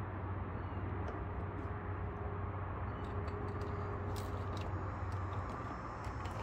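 Motor oil pouring from a plastic bottle through a funnel into the lawn tractor engine's fill tube, over a steady low rumble of background noise. From about three seconds in come scattered light clicks and taps as the bottle is lifted away and handled.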